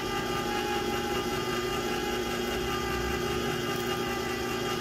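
Electric can opener running steadily as it cuts open a can, a constant motor hum.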